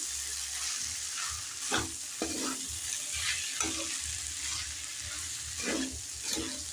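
Metal spatula scraping and stirring grated boiled potato into spiced cauliflower in a metal kadai, in irregular strokes about every half second to a second.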